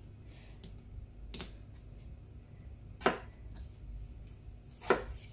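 Chef's knife chopping through peeled raw potato onto a plastic cutting board: three sharp knocks about a second and a half apart, with fainter ticks between.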